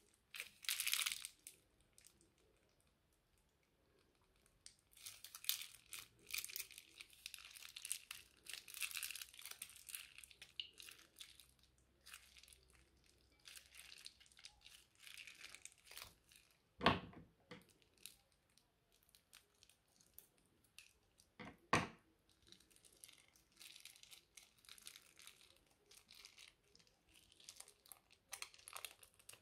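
Slime with foam beads being squeezed from a plastic piping bag and pulled by hand: crinkling of the bag and fine, sticky crackling of the slime, coming and going. Two sharp pops stand out, the louder about halfway through and a second a few seconds later.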